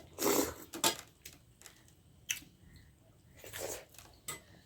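Close-miked eating sounds: wet mouth smacks and chewing of soft dhido with nettle curry, in a few short separate bursts, the loudest right at the start.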